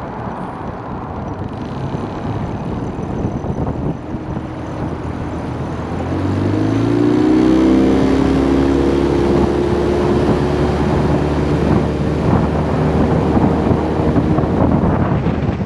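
Small tiller-steered outboard motor on a 12 ft aluminium boat, running under way and opening up: its pitch rises and it gets louder about six seconds in, then it holds steady at speed.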